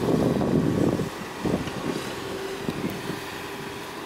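Wind blowing on the microphone in gusts, strongest in the first second, then easing to a weaker, steadier rush.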